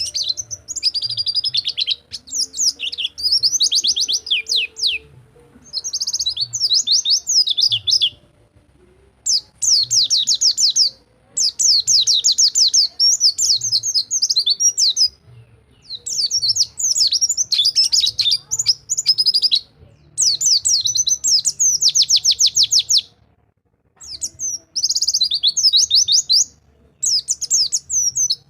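Pleci (white-eye, Zosterops) singing in the 'rol tembak' style: long runs of rapid, high twittering notes, in phrases of one to three seconds separated by short pauses.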